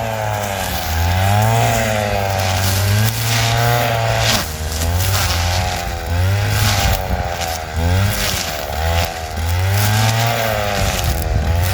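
Stihl FS 160 two-stroke brush cutter running while clearing brush: the engine speed rises and falls over and over, every second or so, as the blade works through the growth.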